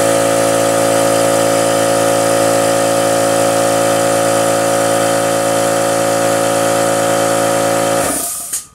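A motor running steadily at one constant pitch, then cutting off abruptly near the end.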